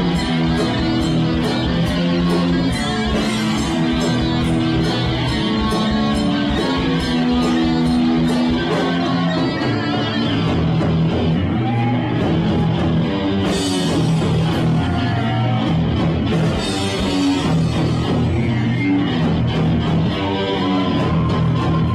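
Live heavy metal band playing an original song: distorted electric guitars, bass and a drum kit. The drumming is fast and dense through roughly the first half, then the song shifts section, with cymbal crashes about two-thirds of the way in and again a few seconds later.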